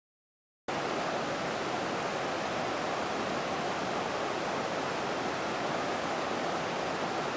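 Dead silence for a split second, then the steady rush of a river running over a rocky riffle.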